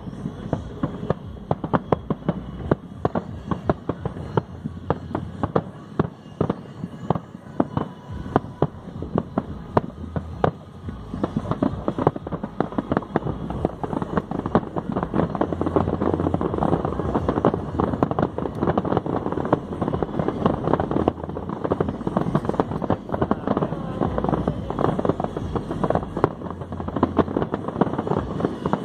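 Continuous dense crackling: many sharp pops and cracks in quick, irregular succession, growing thicker and louder about halfway through.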